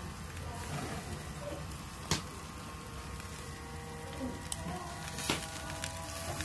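Barbecue skewers on a gas grill, with a low steady hum and a faint sizzling hiss. A few sharp wooden clicks come as the bamboo skewers are turned and knocked against the grill; the loudest is about two seconds in and another comes past five seconds.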